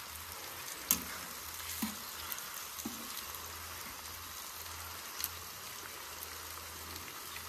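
Burgers, sausages and pork sizzling on a flat-top barbecue griddle, a steady hiss, with a few sharp clicks of a metal utensil against the dish or griddle.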